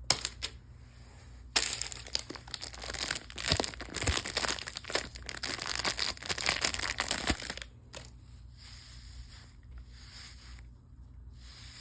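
Plastic packaging being crinkled and torn open for about six seconds, then only faint handling noise with a few light clicks.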